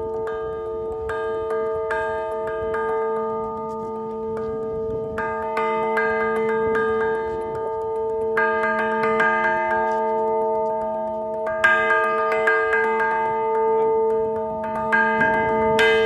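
A large bronze bell struck by hand with a pair of beaters, its deep hum and higher partials ringing on steadily under a quick patter of light strikes. Harder strikes come about every three seconds, each brightening the ring.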